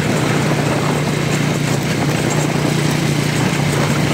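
Motorcycle engine running at a steady speed while pulling a second motorcycle on a tow rope: a constant low drone under an even rush of wind and road noise.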